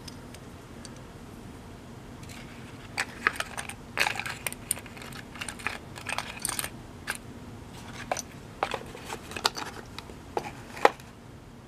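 Handling of a wooden fishing lure with metal treble hooks and its small cardboard box: an irregular run of clicks, taps and light rustles, starting about three seconds in, as the lure is boxed and the cardboard boxes are set down on a wooden workbench.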